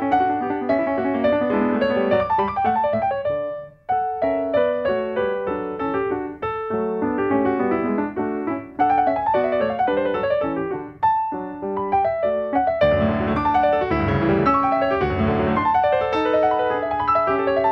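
Solo grand piano playing fast classical passagework. Just before four seconds in it breaks off for a moment, and from about thirteen to fifteen seconds a fuller, louder passage sits lower on the keyboard.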